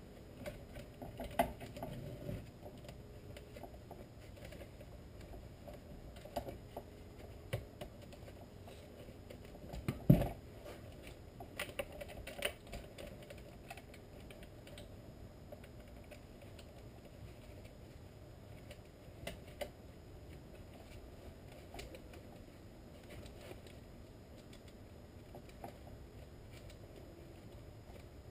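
Saw chain links clicking and rattling against a chainsaw guide bar as the chain is worked onto the bar by hand, with scattered light knocks from handling and one louder knock about ten seconds in.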